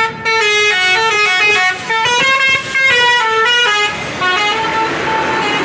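Telolet musical horn of an Indonesian intercity bus playing a quick melody of short stepped notes, followed by a few longer held notes about four seconds in, with vehicle noise rising under them near the end.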